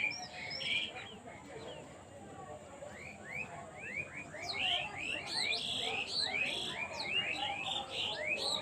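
Small birds chirping: short, rising chirps that come thick and fast from about three seconds in.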